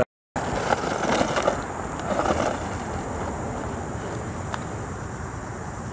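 Hosim 4x4 RC truck driving over rough, rocky ground: its tyres crunch and rattle over stones with the small motor running, loudest in the first few seconds and easing after. Crickets chirp steadily in the background.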